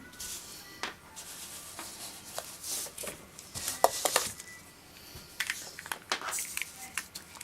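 Small plastic toys and surprise eggs handled on a tabletop: irregular clicks, taps and brief rustles, with one sharper tap a little under four seconds in.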